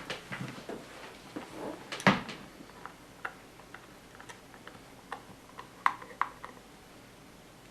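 Scattered small clicks and knocks of a speaker cabinet being handled and screwed back together, with one louder knock about two seconds in and a few sharp clicks near the end.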